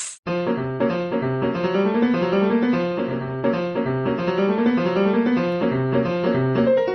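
Piano playing a quick, lively tune over a repeating bass line. It starts a moment in, after a short silence.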